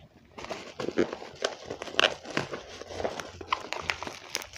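Black plastic shipping bag crinkling and crackling in irregular bursts as it is handled and pulled open, starting about half a second in.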